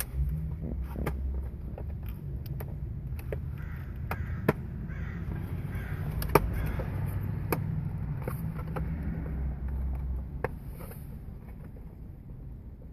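Plastic dashboard trim clips clicking and snapping as they are unclipped and the panels are handled, with scattered sharp clicks over low rumbling handling noise. Two louder snaps come about a third and halfway through.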